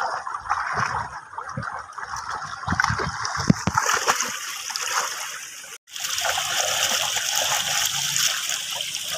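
Water splashing from a child's kicking legs in a shallow, flowing mountain stream, in irregular splashes over running water. The sound breaks off for a moment about six seconds in.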